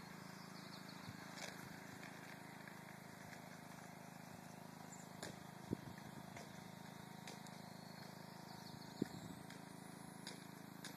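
Quiet outdoor background noise with a steady low hum, broken by two short sharp clicks about six and nine seconds in.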